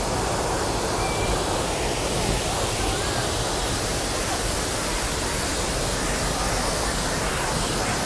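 Steady, even rush of a wide two-tier waterfall pouring over a stone weir, the river running strong.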